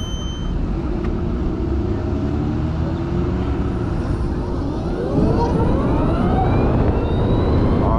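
Harley-Davidson LiveWire electric motorcycle pulling away from a stop: its motor whine climbs in pitch as it picks up speed, over a low rumble of wind on the microphone that gets louder about five seconds in.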